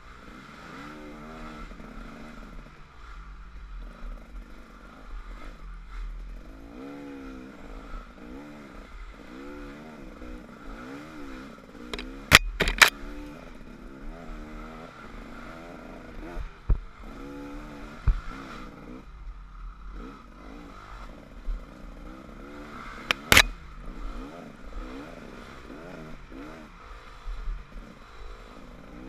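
Off-road dirt bike engine under way, its revs rising and falling repeatedly as the throttle is worked. A few sharp knocks break through: a close pair about halfway and another later on.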